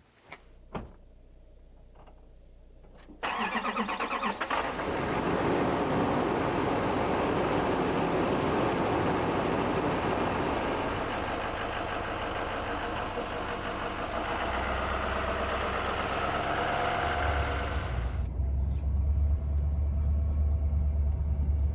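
GMC pickup truck's engine starting about three seconds in and then running steadily, heard from outside the truck. Near the end the sound becomes a deep, low rumble heard from inside the cab.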